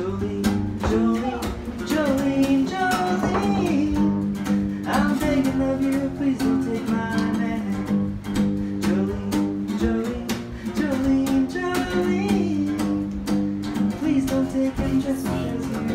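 Acoustic guitar strummed in a steady, quick rhythm, chords ringing on.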